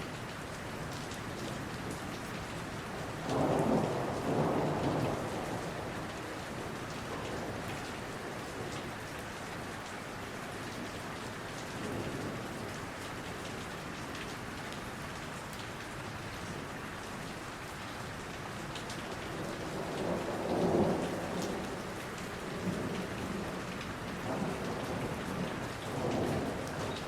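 Steady rain falling, with low rolls of thunder swelling up a few seconds in and again about three-quarters of the way through.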